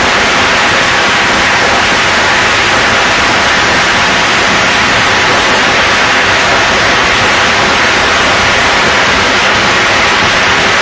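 Ground fountain firework spraying sparks: a loud, steady hissing rush.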